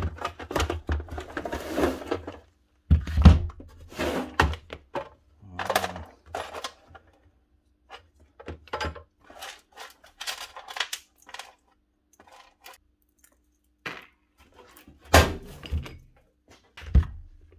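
Handling knocks and thunks from a heavy Bosch GSH 4 hammer and its steel carry case, with clattering as the tool and its cable are moved onto a workbench. The loudest thud comes about three seconds in, with more knocks near the end.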